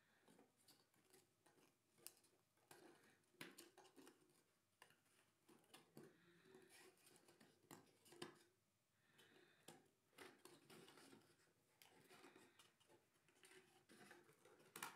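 Faint clicks, taps and light rustles of laser-cut wooden model-kit parts being handled and slotted together by hand, with a sharper click near the end.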